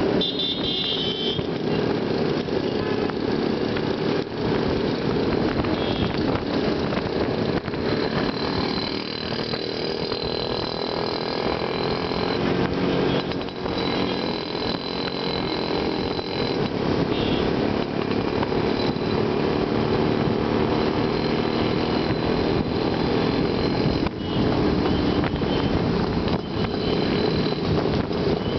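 Yezdi and Jawa two-stroke motorcycle engines running steadily at cruising speed, heard from a bike riding in the group, over road and wind noise.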